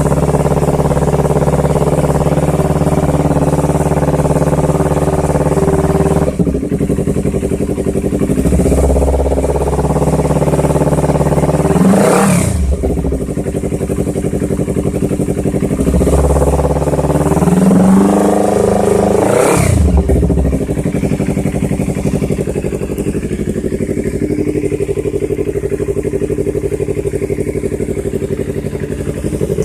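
Yamaha R25/R3 parallel-twin engine fitted with an aftermarket Proliner exhaust with the baffle removed, idling steadily. The throttle is blipped twice, about twelve and twenty seconds in, the note rising sharply and falling back to idle each time.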